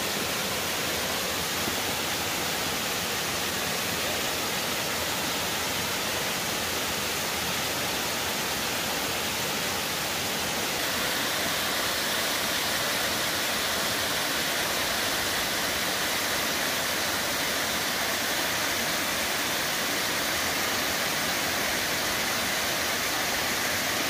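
Steady rushing of Tom Branch Falls, a tall cascade spilling over rock ledges into Deep Creek. The sound turns a little brighter about eleven seconds in.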